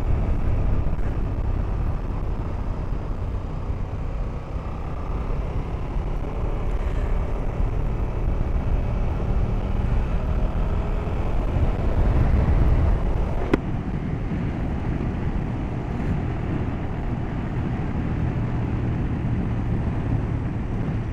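KTM Super Duke GT's V-twin engine running at road speed under steady wind rush on the microphone, its pitch drifting up and down a little with the throttle. A single sharp click about two-thirds of the way through.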